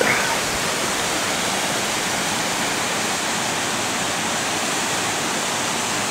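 Waterfall pouring steadily over rock, a constant even rush of water.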